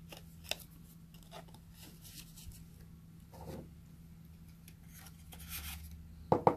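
Faint rubbing and rustling of cotton-gloved hands handling a paper card and a cardboard plate, with scattered soft taps. A faint steady hum runs underneath, and two sharp knocks come near the end.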